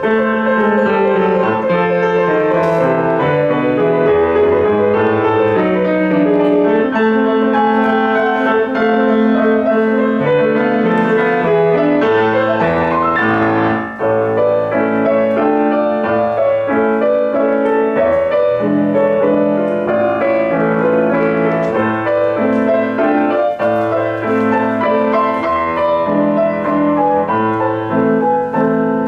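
Solo piano playing continuously, with many quick notes over a low bass line. There is a brief break about halfway through before the playing resumes.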